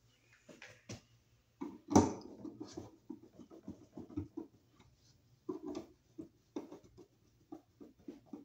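Screwdriver turning the mounting screws of a 240-volt receptacle into a metal electrical box by hand: a run of small scrapes and clicks, with a louder knock about two seconds in.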